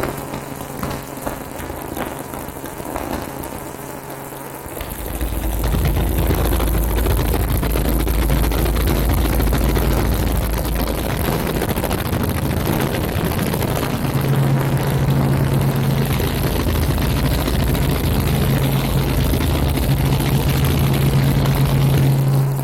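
Helicopter engine and rotor noise: a steady, loud mechanical drone with a low hum. It gets louder about five seconds in.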